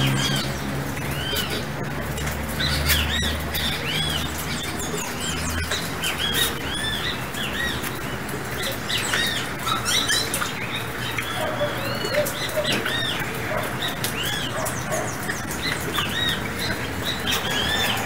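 Carib grackles chirping and calling, a steady run of many short, quick notes, with a low hum underneath for the first few seconds.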